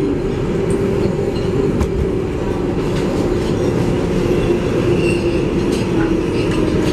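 Inside a moving R188 subway car running through the tunnel: a steady loud rumble of wheels on rail with a constant hum-like tone over it. A faint high wheel squeal comes and goes in the second half.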